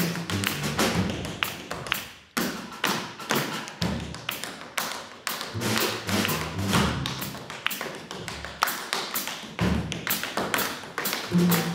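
Tap shoes striking a stage floor in fast rhythmic patterns, with an upright bass playing low notes underneath. The tapping breaks off briefly about two seconds in, then picks up again.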